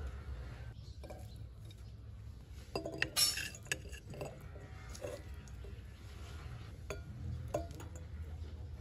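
Serving spoon clinking and scraping against a china plate as a stir-fry is heaped onto it: a quick clatter about three seconds in, then a few single, lighter clinks.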